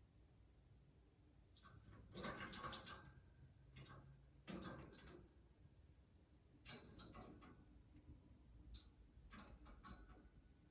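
Faint, scattered bursts of clicking and rustling, four or five short clusters.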